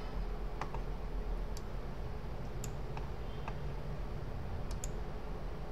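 Computer mouse clicking about half a dozen times, scattered irregularly with some in quick pairs, over a steady low background hum.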